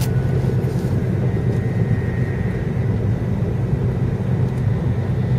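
Steady low rumble and rush of an N700 series Shinkansen running, heard inside the passenger cabin.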